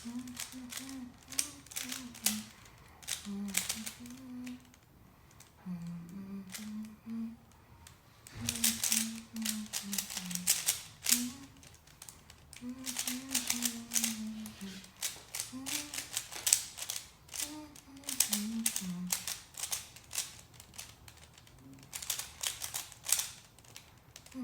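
Rubik's cube layers being turned in quick bursts of clicking, while a person hums a tune in short stepping notes.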